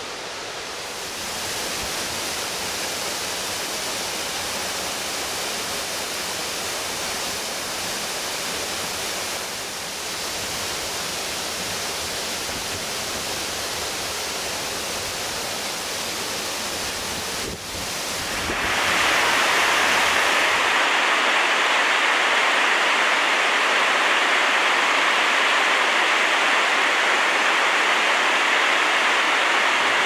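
Steady rushing of a waterfall. About 18 seconds in it changes to a louder, hissier rush of falling water.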